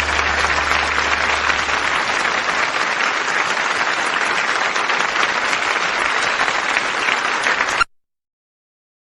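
Live audience applauding at the end of a song, cut off suddenly about eight seconds in and followed by dead silence.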